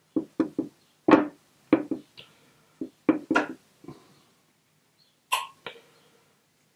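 Paintbrush tapping and working paint in the wells of a watercolour palette box: about a dozen short, irregular taps over four seconds, then a brief scratch and one more tap a little past five seconds.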